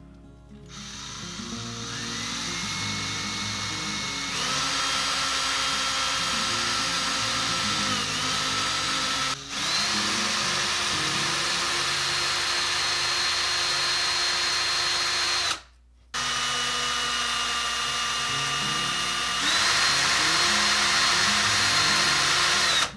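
Cordless drill running, spinning a rusty toy-car axle held in its chuck while abrasive paper pinched around the axle polishes off the rust, a steady hiss under the drill's high whine. The whine steps up in pitch several times as the speed changes, and the drill stops briefly twice, once just past a third of the way in and for about half a second two-thirds in. Background music underneath.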